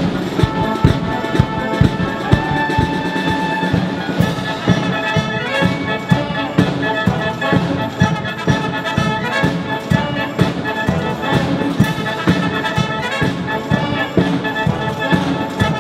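Military band playing, with brass (trumpets and trombones) carrying the tune over a steady beat.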